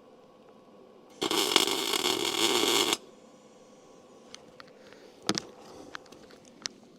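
A welding arc crackling and sizzling for about two seconds as a tack weld is laid to stick a frame piece in place, starting about a second in and cutting off sharply. A few sharp metallic clicks and knocks follow.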